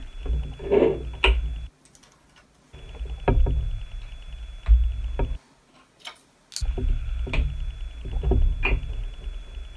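Plastic LEGO pieces being handled and pressed together: a series of sharp clicks and taps, with a low hum underneath that drops out twice.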